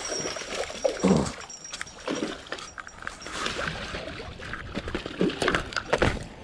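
Irregular splashing, rustling and knocking as a hooked black bass is played and landed in a narrow concrete channel: the spinning reel and rod being worked, feet in dry grass, and the landing net being handled, in short scattered knocks and rustles.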